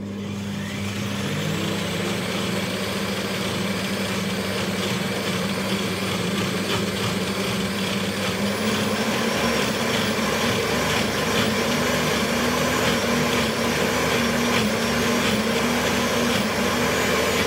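Countertop blender motor running on high, blending chickpeas, water and oil into hummus. It starts abruptly, comes up to speed in the first second, then runs steadily, its pitch wavering slightly as the thick mixture churns.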